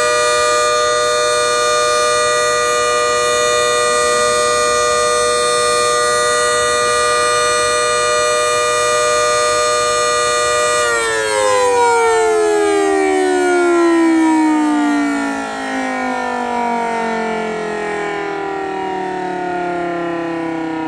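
Federal Signal Model 2/2T electromechanical siren holding a steady tone at full speed, then cut off about 11 seconds in and winding down in a long, slowly falling pitch. It runs strongly enough that the owner says it sounds like it's doing better and not dying.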